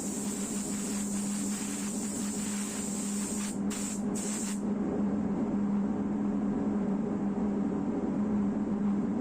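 Pneumatic paint spray gun hissing as primer is sprayed. The trigger is let off briefly twice about three and a half seconds in, and the hiss cuts off about a second later. A steady low machine hum runs underneath.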